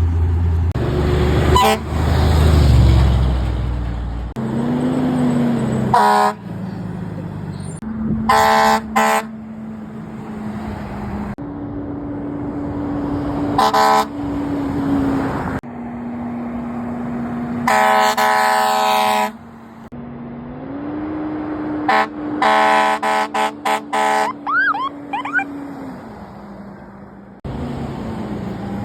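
Fire truck air horns sounding in short blasts and longer blows: one long blast about midway and a rapid string of short toots later on. A steady low tone runs underneath and shifts up and down in pitch, with abrupt changes where one clip gives way to the next.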